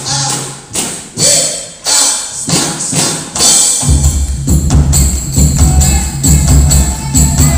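Live angguk dance accompaniment from a percussion ensemble: frame drums and jingles are struck in a quick rhythm. About four seconds in, a heavy low drum beat comes in and the music gets louder.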